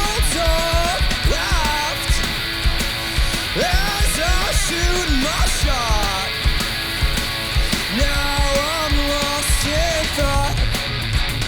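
Fast punk-rock instrumental intro played live by a guitar-and-drums duo: a distorted electric guitar playing a melodic lead with bent notes over steady, driving drums.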